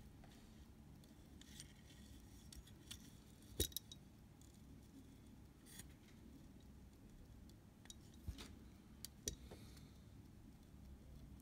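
Near silence broken by a few faint, scattered clicks and clinks of small metal tools and parts being handled on a Leica camera shutter, the sharpest about three and a half seconds in.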